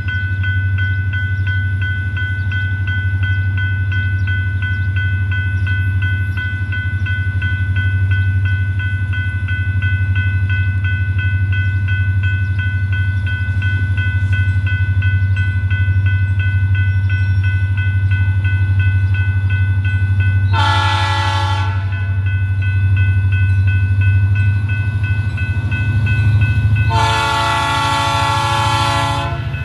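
Diesel locomotive of a freight train approaching, its engine a steady low rumble, sounding its horn twice: a short blast about two-thirds of the way through and a longer blast near the end.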